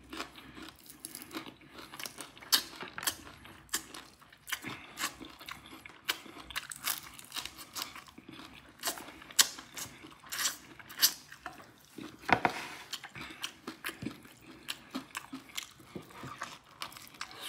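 Close-up mouth sounds of eating fish and rice by hand: wet chewing and lip smacking, an irregular run of sharp clicks.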